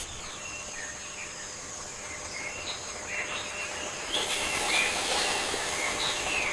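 Rainforest birds chirping and whistling in many short calls over a steady high-pitched hum and hiss. The calls grow busier and louder about four seconds in.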